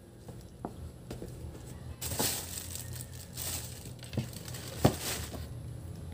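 Plastic parcel mailer bag crinkling and rustling as it is handled, starting about two seconds in, with a few light knocks, the sharpest about five seconds in.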